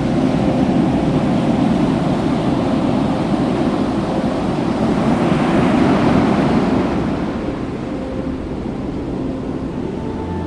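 Ocean surf washing onto the beach, a steady rush that builds to a peak about halfway through as a wave breaks, then eases off.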